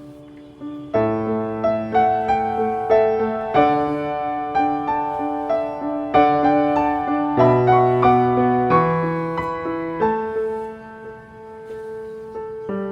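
Background piano music: a gentle melody with chords, getting louder about a second in.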